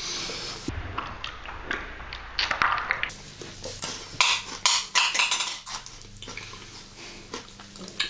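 Close-miked chewing of Maltesers, the crisp malted-centre chocolate balls crunching between the teeth in many sharp, irregular cracks, thickest about halfway through.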